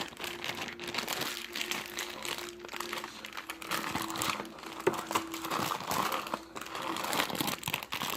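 Slime being squeezed and kneaded close to the microphone: a steady, irregular run of small crackles and pops.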